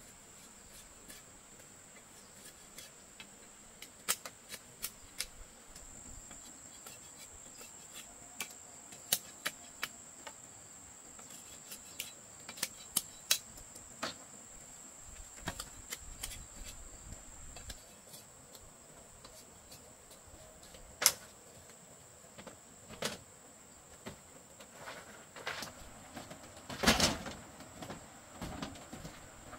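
Scattered sharp knocks and taps of bamboo sticks being handled and fitted together, with a louder cluster of knocks near the end. A steady high insect drone runs underneath.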